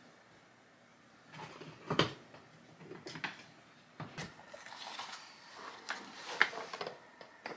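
Hard plastic storage tote being handled: a series of knocks and clicks as its latches are unsnapped and the lid is taken off, the loudest knocks about two seconds in and again near the end.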